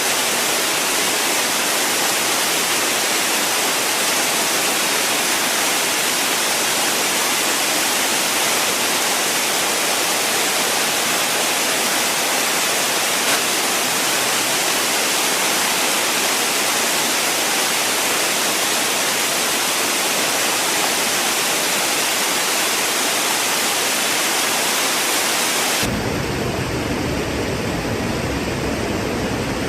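Waterfall, a steady rushing hiss of falling water. About 26 seconds in it changes abruptly to a deeper, fuller rush with more low rumble.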